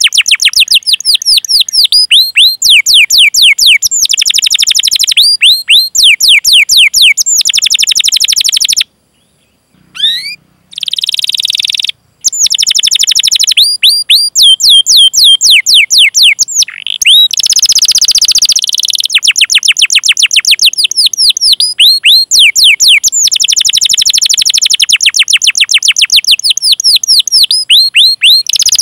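Canary singing long rolling phrases of rapid, repeated falling 'cuit cuit' chirps, several a second, broken by short pauses about nine and twelve seconds in.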